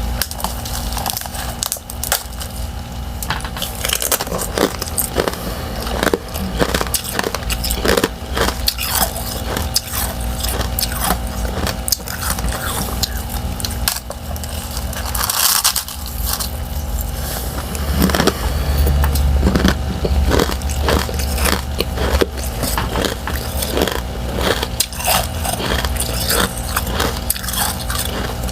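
Repeated crunchy bites into thin-shelled freezer-frost ice chunks coated in powdery frost: many separate sharp crunches, one longer grinding crunch near the middle. A steady low hum runs underneath.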